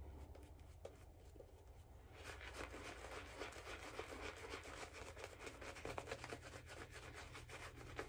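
Shaving brush swirling a very wet, heavily hydrated shaving-soap lather on a face, a soft squishy rubbing that starts about two seconds in and keeps going, with a few light clicks before it.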